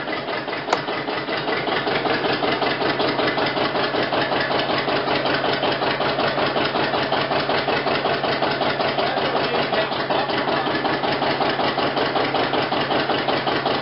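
John Deere 730 diesel tractor's two-cylinder engine running steadily, with an even, rapid pulsing beat from its exhaust.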